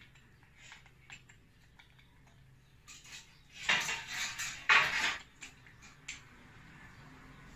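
Metal hardware clinking and rattling as door-frame parts and screws are handled: a few light clicks, then two louder clattering bursts around four and five seconds in, then a few more light clicks.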